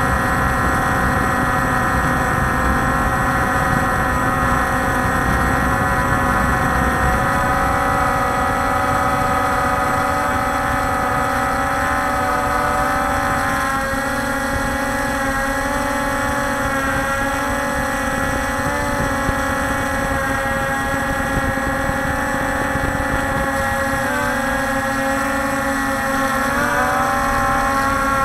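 Scout X4 quadcopter's electric motors and propellers whining steadily in flight, as picked up by its own onboard camera, over a low rushing underneath. The pitch wavers and shifts briefly a few seconds before the end as the motors change speed.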